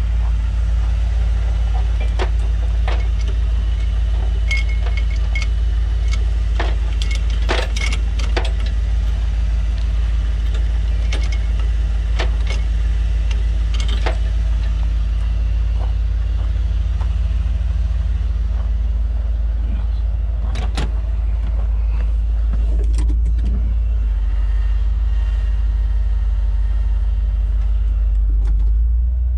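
Pickup truck engine idling steadily, with scattered sharp metallic clicks and clanks over it, most of them in the first half and a few more about two-thirds of the way through.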